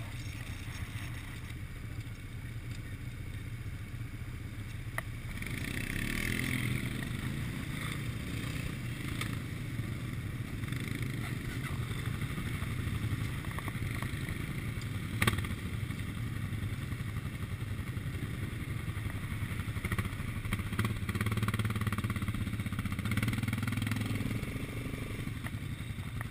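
Quad bike engines running at idle, with another quad's engine rising and passing close about six seconds in and again near the end. A sharp knock about halfway through.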